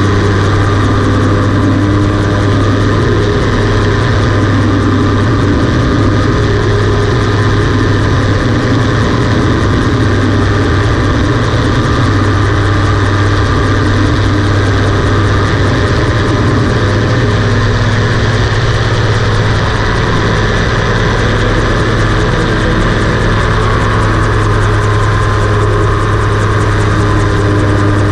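Rotax 582 two-stroke twin engine and propeller of a homebuilt float-equipped gyroplane running steadily in flight, with a constant low engine note.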